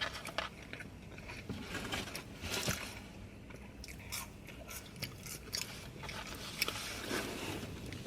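Close-up mukbang eating sounds: biting and chewing fast food, with many small crunches and mouth clicks.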